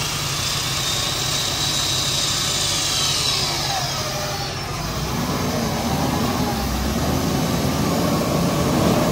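A 4x4 pickup's engine idling steadily.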